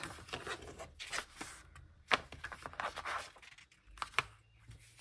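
Pages of a glossy album photo booklet being turned by hand: paper rustling and sliding, with a couple of sharp flicks, about two seconds in and again about four seconds in.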